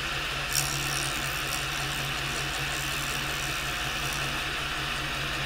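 Tool and cutter grinder running with a steady hum. A high-speed steel cutoff tool blade is held against the grinding wheel from about half a second in until about four seconds, giving a high hissing grind over the hum as its edge is touched up.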